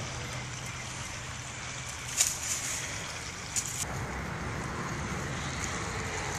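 Wind rumbling steadily on the microphone, with a few short crackles of dry leaves about two seconds in and again after three and a half seconds.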